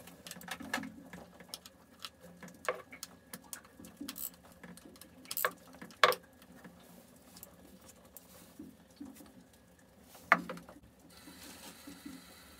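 Small metal clicks and scrapes of a spanner working the screws of a marine diesel's raw-water impeller pump cover plate, with a few sharper metal knocks, the loudest about six seconds in and another about ten seconds in. A faint steady hiss comes in near the end.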